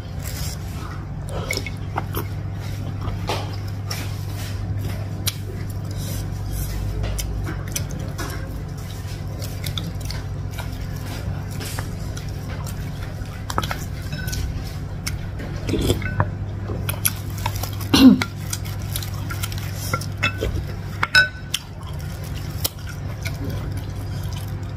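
Wooden spoon and fork working through a large meatball in a ceramic bowl of broth: scattered clicks and knocks of the utensils against the bowl and soft liquid sounds, a few louder knocks in the second half, over a steady low hum.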